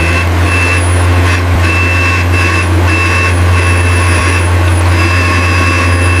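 A truck engine runs steadily with a low rumble, and a high thin tone cuts in and out over it.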